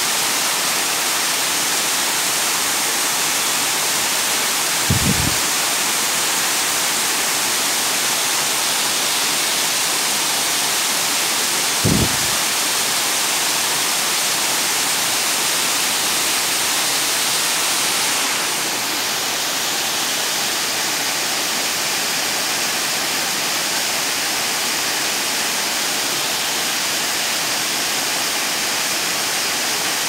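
Waterfall pouring over rock steps into a pool: a steady loud rushing of water. Two brief low thumps stand out, about five and twelve seconds in, and the rushing gets slightly softer about two-thirds of the way through.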